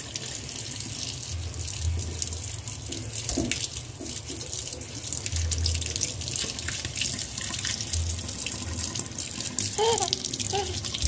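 Kitchen mixer tap running steadily into a stainless steel sink, the stream splashing over a cup and a hand held under it.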